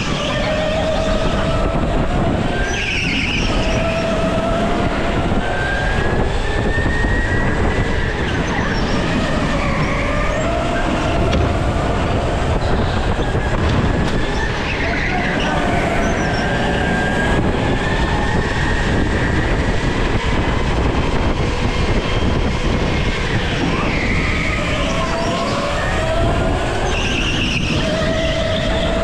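Go-kart running hard around a polished concrete indoor track, its motor's pitch rising and falling with speed through the corners. Short tyre squeals come in the corners, around three seconds in, midway and near the end.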